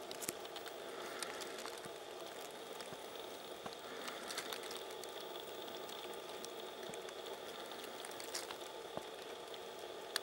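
Outdoor forest ambience: a steady hiss with small, scattered ticks and crackles throughout, and no gunfire.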